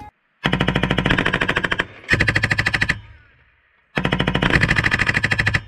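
M249 light machine gun firing 5.56 mm rounds in three short bursts of automatic fire, the first and last about a second and a half long and the middle one shorter. Each burst ends in a fading echo.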